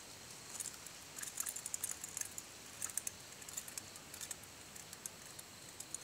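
A freshly landed fish with a lure in its mouth flopping on dry grass and leaves, giving irregular quick rustles and clicks in several short flurries.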